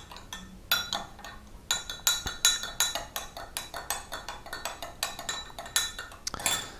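Metal spoon stirring a thin sauce in a glass measuring cup, clinking against the glass in quick repeated taps, with a short pause about a second and a half in.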